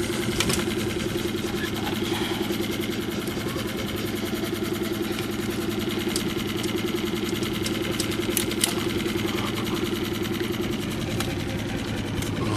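Small outboard motor running steadily at idle, a fast even chugging, with a couple of brief sharp clicks over it.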